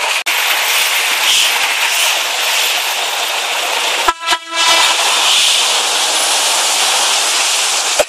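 Steady loud rushing hiss of floodwater and rain along a wet street. A vehicle horn sounds briefly about four seconds in.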